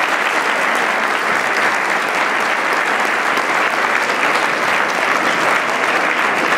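A large audience applauding steadily, the dense clatter of many hands clapping at once.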